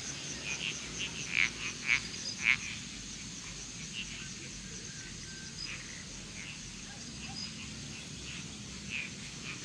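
Frogs croaking at dusk: a run of short calls, the three loudest about one and a half to two and a half seconds in, with fainter ones scattered after, over a steady high insect trill.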